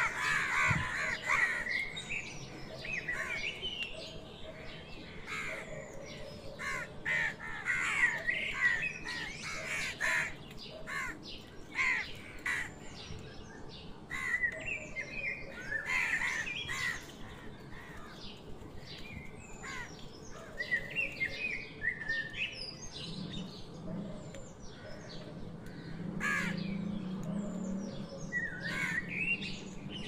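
House crows cawing on and off with other bird chirps mixed in, in bursts of short calls, over scattered sharp ticks.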